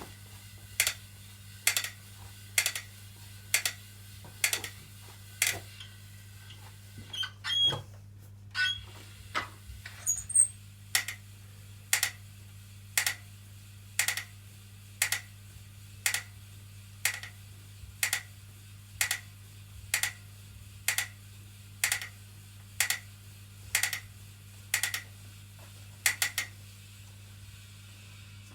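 BTM spin bike clicking as the pedals turn, a sharp click about once a second, which is a fault in the new bike. The clicks go irregular for a few seconds partway through, then resume their steady rhythm before stopping near the end.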